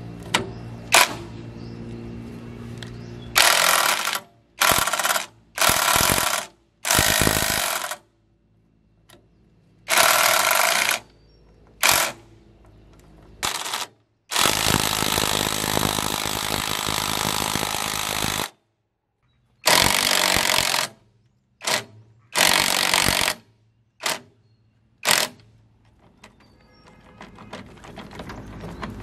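Hitachi-branded cordless impact wrench hammering in about a dozen short bursts with pauses between them, turning the bolts that hold a rotary tiller's blades. The longest burst, about four seconds, comes about halfway through.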